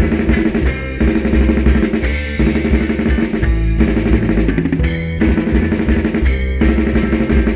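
Punk rock band playing an instrumental passage between sung lines, with drum kit, bass and electric guitar. The riff stops briefly about every second and a half.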